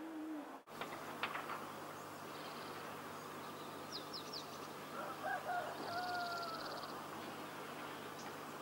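Birds calling faintly over a steady background hiss: a few quick high chirps about four seconds in, then a lower call just after five seconds that ends in one long, slightly falling held note.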